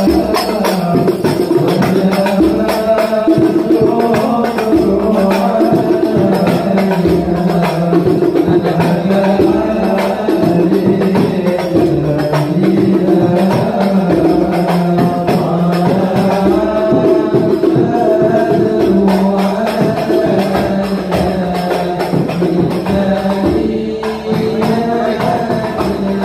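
A group of men chanting a song in unison, accompanied by a hand-beaten frame drum with metal jingles.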